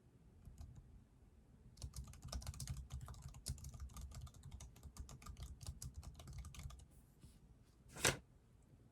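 Typing on a computer keyboard: a fast run of key clicks lasting about five seconds, then a single louder key strike near the end.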